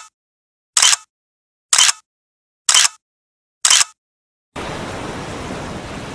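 Camera-shutter sound effect repeated about once a second, five short clicks with silence between. About 4.5 s in, steady ocean-surf noise takes over.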